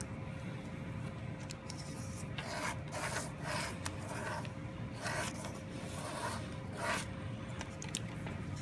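Ballpoint pen scratching across paper as a clear plastic strip drawing compass is swung around its pivot to draw a circle, heard as a series of short, quiet scratching strokes, mostly from about two to seven seconds in.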